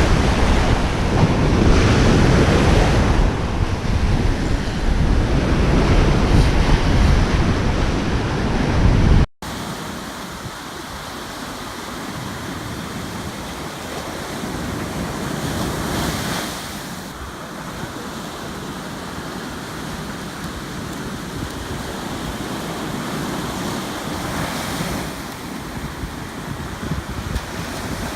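Ocean surf washing on a beach, with strong wind buffeting the microphone. About nine seconds in, the sound cuts off abruptly and the wind rumble is gone, leaving a quieter, steady wash of waves.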